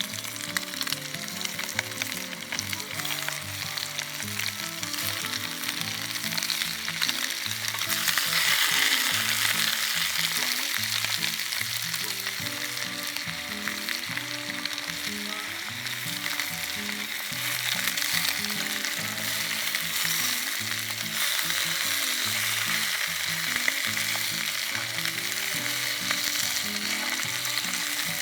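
Food sizzling and frying in a pan, a steady hiss that grows louder about eight seconds in, with background music underneath.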